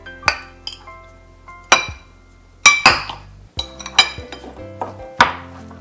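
Metal utensil clinking against ceramic and glass bowls while sliced hard-boiled eggs are served out, in about nine sharp separate clinks, the loudest a little past the middle, over soft background music.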